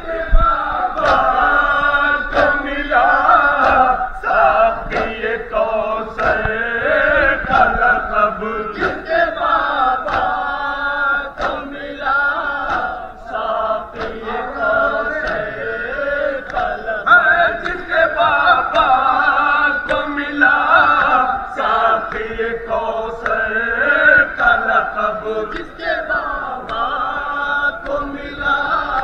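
A crowd of Shia mourners chanting a Muharram lament together, with a regular beat of chest-beating (matam) at about three strokes every two seconds.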